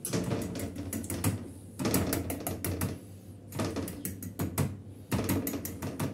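A metal fork pricking rolled-out yeast pizza dough, its tines tapping on the metal baking tray beneath in quick runs of clicks with short pauses between them. The dough is being docked with holes so it won't puff up.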